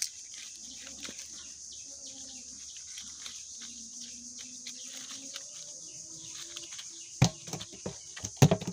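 Nylon cast net and dry leaves rustling and crackling as live tilapia are picked out of the net by hand, with a couple of loud sharp slaps near the end.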